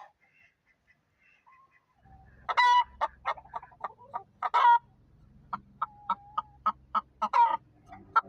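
Hen clucking in a run of short, sharp clucks broken by three longer, louder squawks every two to three seconds, starting about two seconds in after a near-quiet start. This is the cackling a hen gives around laying an egg.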